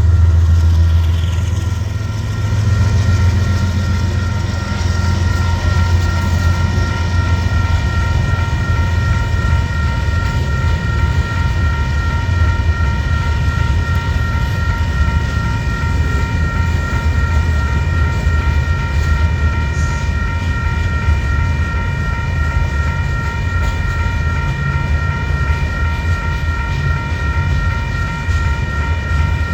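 Union Pacific gravel freight train rolling past: a steady, loud low rumble of the cars on the rails, with steady high-pitched ringing tones running over it throughout.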